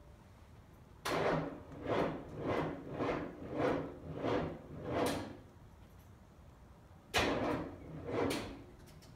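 A GM 6.2 litre Detroit Diesel V8 cranking over very slowly on its starter in labored pulses: seven in about four seconds, then two more after a pause, without catching. This is a failed cold start on weak batteries.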